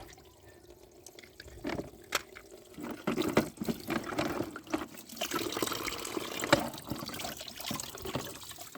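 Water splashing and trickling as muddy toy vehicles are rinsed and scrubbed, with a few light knocks. The water sounds pick up about three seconds in.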